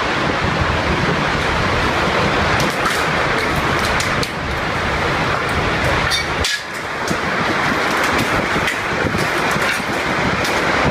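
Hailstorm: hailstones pelting down in a loud, dense clatter, with sharper individual strikes standing out. There is a brief drop about six and a half seconds in.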